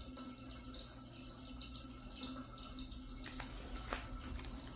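Quiet room tone with a faint steady hum, and two soft clicks about three and four seconds in as a paperback picture book is handled.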